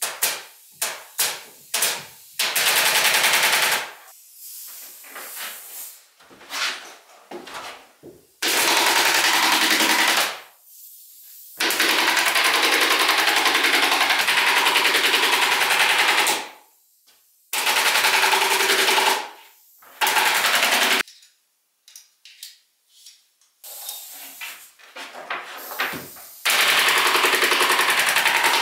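Pneumatic stapler fired into the ceiling: a few single shots in the first couple of seconds, then long rapid-fire bursts of stapling with short pauses between them, as white sheeting is fastened to the ceiling framing.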